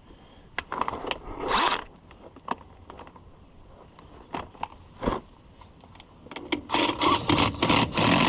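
Hand tools scraping and knocking against a tire and wheel rim while the tire is worked onto the rim, with a single sharp knock about five seconds in and a quick run of rasping strokes near the end.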